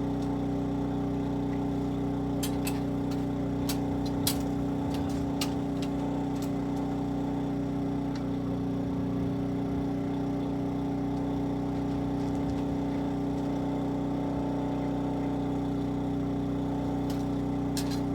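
Portable generator running steadily with an even engine drone, with a few light clicks and knocks over it, a handful near the start and several near the end.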